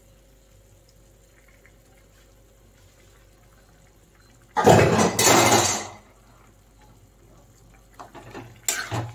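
Mostly quiet, then about four and a half seconds in a loud rushing noise lasts about a second and a half. Near the end, a metal spatula scrapes and knocks in a pan of dal as stirring begins.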